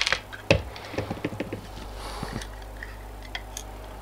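Light clicks, taps and scrapes of plastic parts being handled and pulled apart: the housing of a modular automatic transfer switch's handle mechanism separated by hand. A cluster of sharp clicks comes in the first two seconds or so, then one more click later.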